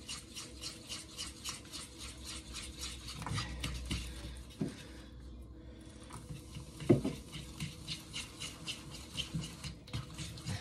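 Beer batter being stirred briskly with a utensil in a stainless steel bowl: quick, even scraping strokes about four a second against the metal. The stirring breaks off briefly about five seconds in, and there is a single sharper knock about seven seconds in.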